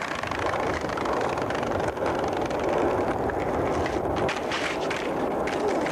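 Skateboard wheels rolling over pavement with a steady rumble, with a few sharp clacks of the board in the second half.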